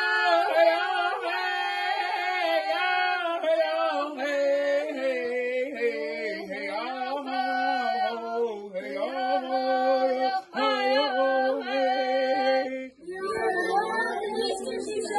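A group of voices, children among them, sings a Native American song in unison on vocables ("yo hey"), unaccompanied, in long held phrases that step up and down in pitch. About thirteen seconds in the singing breaks off into a rougher jumble of voices.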